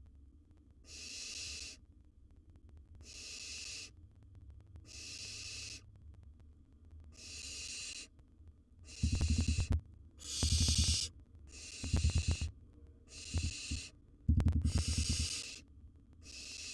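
Barn owl nestlings giving their drawn-out hissing begging calls, one hiss about every one and a half to two seconds. From about halfway through, loud low scuffling and thumping from movement in the nest box comes in with them.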